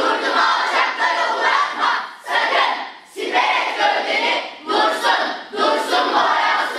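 Children's choir voicing in unison: loud phrases from many voices together, each a second or so long, with brief breaks between them.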